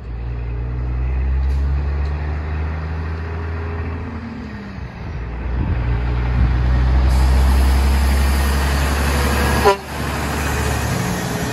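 Diesel engine of a Kenworth semi tractor hauling a tri-axle scrap dump trailer, pulling away under load and growing louder as it approaches. About ten seconds in there is one brief horn toot, the loudest moment.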